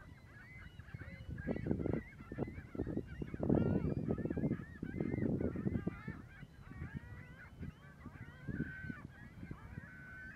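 A flock of gulls calling: many short arching calls overlapping one another throughout, over a low rushing noise that is strongest in the middle.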